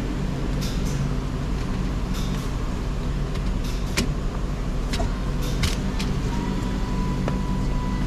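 Steady low mechanical hum of a garage workshop, with a few short, sharp clicks and knocks from tools and car parts being handled. A faint steady tone comes in about six seconds in.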